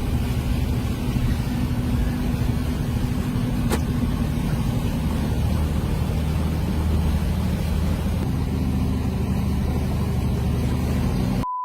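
A vehicle's engine running steadily under load, heard from inside while it drives through floodwater, with one sharp click about four seconds in. A short, steady beep cuts in at the very end.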